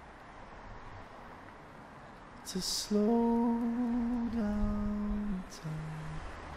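A voice humming a short descending phrase: a long held note, a slightly lower one, then a brief lower note near the end. A short hiss comes just before the humming starts.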